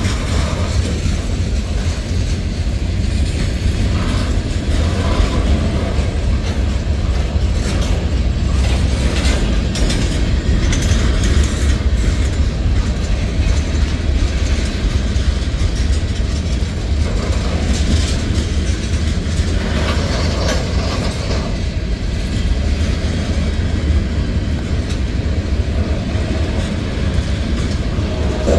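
Freight cars of a mixed manifest train (covered hoppers and tank cars) rolling past close by: a steady low rumble of steel wheels on rail, with repeated clicks as the wheel sets cross rail joints.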